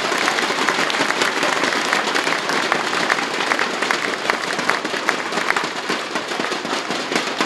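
Crowd of spectators applauding a strike in a bowling final: dense, steady clapping that slowly tapers off near the end.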